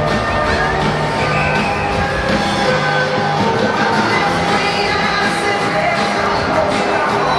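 Music with singing, playing steadily over crowd noise.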